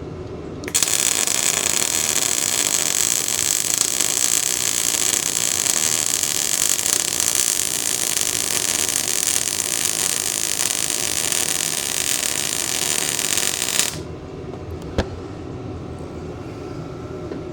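Bestarc MIG 145 welder laying a weld bead on a steel bracket: the arc hisses steadily for about thirteen seconds, starting about a second in and cutting off suddenly a few seconds before the end.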